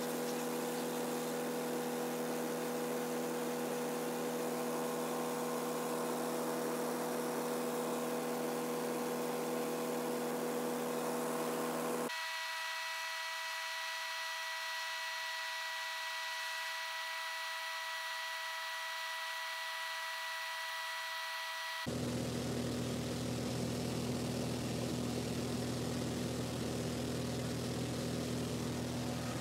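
Cabin drone of a Cessna 182Q Skylane in flight: its six-cylinder piston engine and propeller make a steady hum with rushing wind noise. About twelve seconds in, the sound cuts to a thinner, higher-pitched drone with no low end. About ten seconds later it cuts back to the fuller drone.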